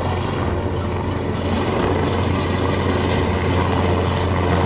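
Helicopter in flight: a steady drone of rotor and engine noise with a strong low hum.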